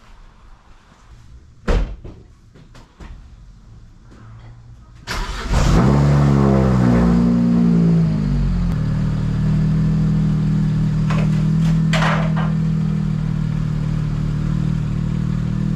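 A car door shuts with a thump, then the BMW 335i's twin-turbo inline-six cranks and fires. Its revs flare up on the start and drop back to a steady idle as the car is backed out.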